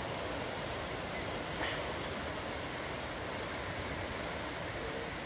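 Steady rushing of a muddy, flash-flooded stream, with one small click about a second and a half in.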